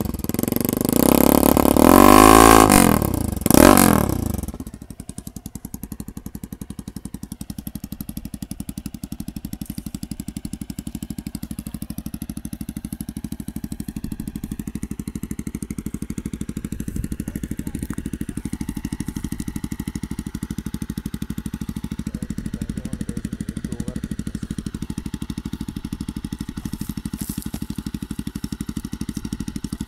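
Jawa 42's single-cylinder engine through its stock exhausts with the dB-killer caps removed and set very loud, revved up and back down a few times, then settling about four seconds in to a steady idle with an even, loud beat.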